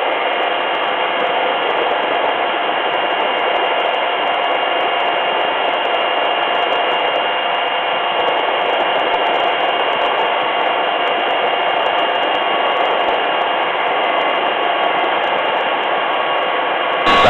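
Helicopter in a hover, heard from inside the cabin: a steady, even noise with several fixed whining tones from the turbine and gearbox that do not change.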